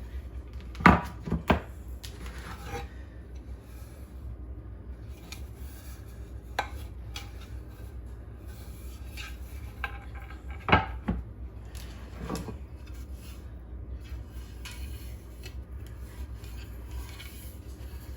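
Wooden cutting boards knocking and clacking as they are handled and set down: a few sharp knocks, two close together near the start and a few more a little past the middle, over a steady low hum.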